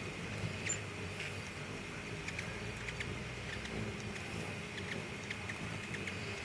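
Scattered short, high chip notes from hummingbirds, several a second, over a steady low hum.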